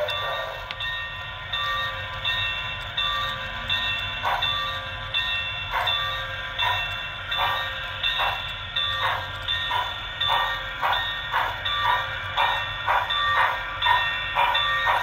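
Sound-decoder steam sounds of an HO scale Broadway Limited Santa Fe Northern with QSI Titan sound, played through the model's small speaker: steam chuffs quickening from about one a second to about two a second as the locomotive gets under way, over a repeated ringing that fits its Santa Fe-style bell.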